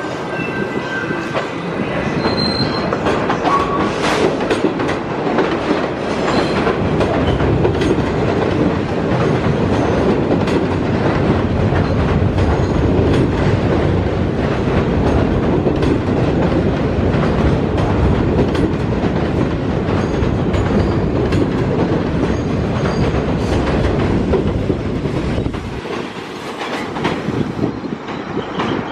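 New York City subway train running along the platform, a loud, steady rail noise with a few short, high wheel squeals in the first few seconds. The noise drops off about 26 seconds in.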